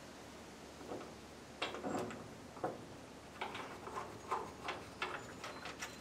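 Irregular metal clinks and knocks as a hay baler's gauge wheel is handled and fitted back onto its steel bracket, starting about a second in, a few of them ringing briefly.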